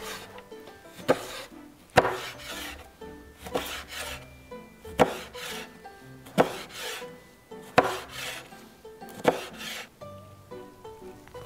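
Chef's knife slicing squid into strips on a cutting board: about seven sharp knocks of the blade on the board, one every second and a half or so, each followed by a brief scrape of the blade drawn through the squid flesh. The cutting stops near the end, leaving soft background music.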